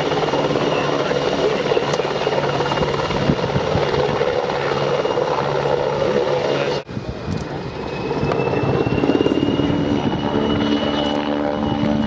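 PZL W-3A Sokol helicopter hovering and then flying over: dense rotor noise with a steady high turbine whine. The sound cuts out sharply for an instant about seven seconds in, then returns with a steadier droning hum of several tones near the end.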